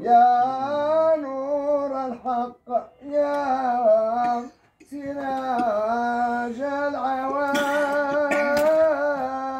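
Sufi devotional chanting: a male voice line sung in long, wavering held notes, with short breaths about two and a half and five seconds in. A few sharp knocks sound near the end.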